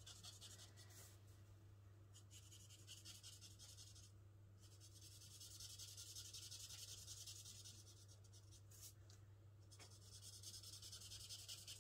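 Faint, scratchy strokes of a Stampin' Blends alcohol marker's brush tip colouring in on cardstock, broken by two short pauses about four and nine seconds in, over a steady low hum.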